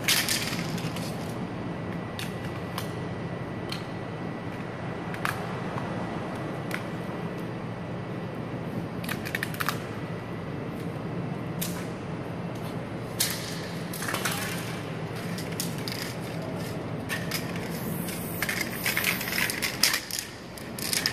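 Aerosol spray paint can hissing in several short bursts, the longest near the end, with a few light clicks between them over a steady low hum.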